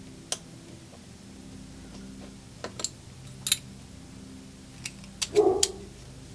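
Small metal clicks and knocks from the parts of a Titan ratchet as a head is worked and pushed into its handle. The clicks are scattered, with a cluster near the end, over a steady low hum.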